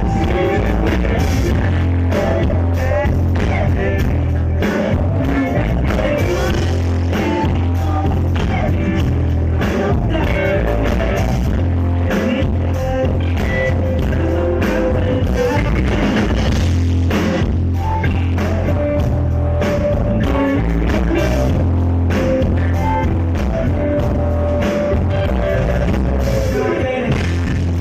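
A live rock band playing loudly through a PA during a sound check, with heavy bass, guitar and a sung melody carrying long held notes.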